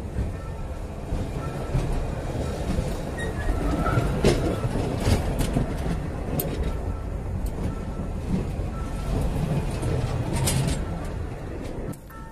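Passenger train cars rolling directly overhead, heard from between the rails: a heavy rumble of wheels on the rails with sharp clacks as the wheels pass. The noise drops off suddenly near the end as the last car clears.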